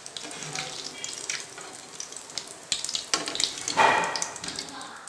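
Paneer cubes frying in hot oil in an aluminium kadai: a steady sizzle with sharp crackles and the clink of a metal skimmer, swelling louder for a second or so about halfway through.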